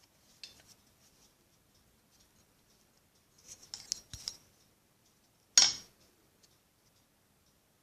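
Handling noise from a straight razor and its packaging: faint ticks and scrapes, a short cluster of clicks about halfway through, and one sharp, louder clack about two-thirds of the way in.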